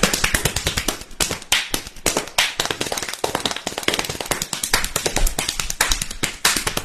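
Rapid, irregular run of sharp clicks and taps, many per second, with no break.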